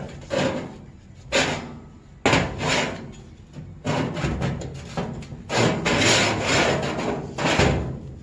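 Metal parts scraping and knocking in about six irregular strokes as a homemade alignment jig is worked into place by hand.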